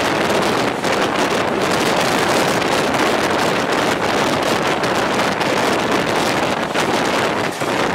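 Passenger train running at speed, its steady rushing noise mixed with wind buffeting the microphone.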